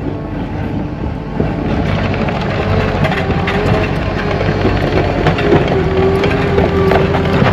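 Caterpillar 305 mini excavator working: diesel engine running under load with a hydraulic whine that shifts in pitch, scattered knocks, and a rise in loudness about a second and a half in.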